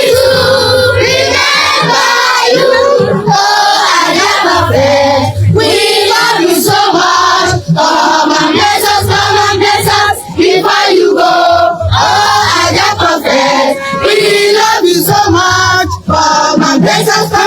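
A group of voices singing a praise song together in chorus, loud and continuous, over a steady low beat.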